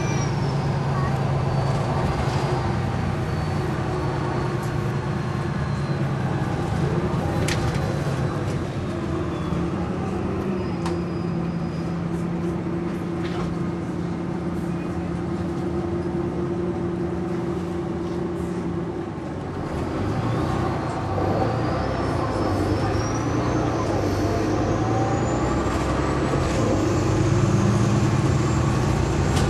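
MAN A22 bus's diesel engine and ZF automatic driveline, heard from inside the passenger saloon while driving. The drone holds steady for a stretch, eases off briefly about two-thirds of the way through, then pulls again, with a thin high whine that climbs as the bus gathers speed near the end.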